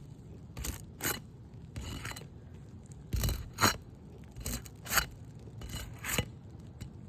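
Asphalt roof shingle being scraped and pried loose, breaking its sealant strip: a series of short, irregular scrapes, one or two a second.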